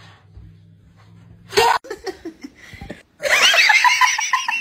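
A faint low hum, a short sudden noise about a second and a half in, then from about three seconds in loud, high-pitched, rapid laughter from a person.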